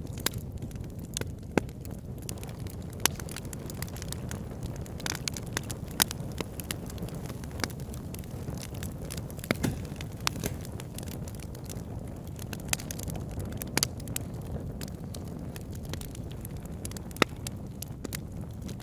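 Wood fire burning in a fireplace: a steady low rumble of the flames with irregular sharp crackles and pops as the logs snap.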